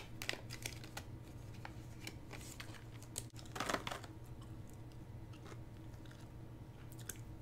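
Thin plastic parts bag crinkling, with light clicks and rustles as small electronic modules and jumper wires are handled; the loudest crinkle comes about three and a half seconds in, over a steady low hum.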